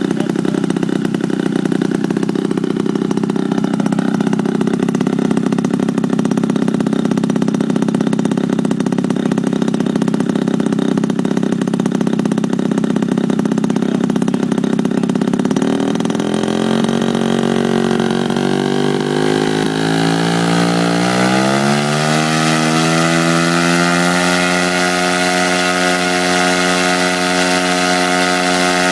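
The engine and propeller of a large radio-controlled biplane running on the ground, steady at a low speed at first; a little past halfway it climbs gradually in pitch over several seconds and then holds steady at a higher speed.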